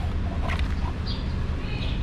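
Light clicks of a plastic side-mirror housing and its wiring being handled, over a steady low rumble.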